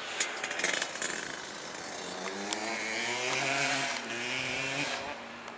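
Dirt bike engine revving up, its pitch rising, dropping briefly and rising again before it cuts off near the end. There are a few sharp clicks in the first second.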